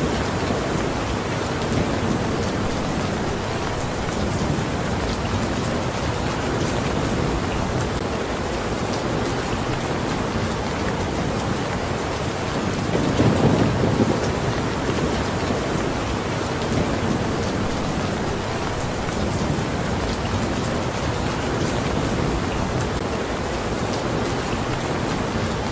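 Steady heavy rain falling as a dense, even hiss. A brief low rumble swells up about halfway through.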